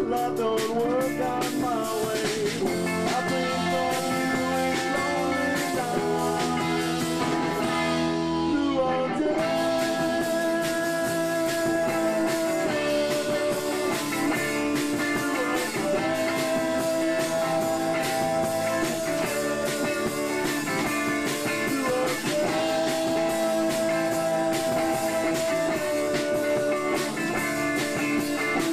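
Live band playing a guitar-led song with drums, with long held high notes that come back about every six seconds.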